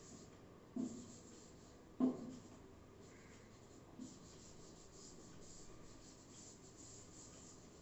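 Three short knocks on a board, then faint scratching of writing or drawing on it.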